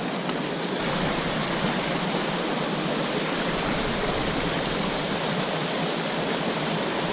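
Steady rushing of a small mountain stream, with a small waterfall pouring into a pool.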